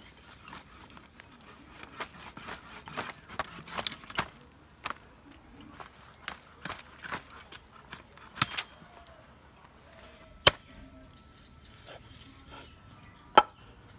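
A dressed goose being cut up: a run of crisp snips and cracks as blades cut through skin and joints, then two sharp, loud knocks about three seconds apart near the end, as a heavy chopping knife strikes a wooden board.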